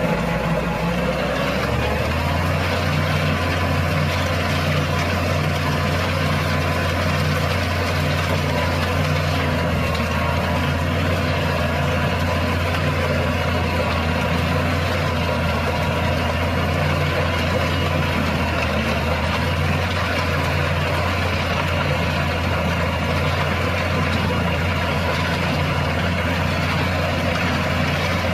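Heavy diesel engine running steadily at a constant speed, a low unbroken drone.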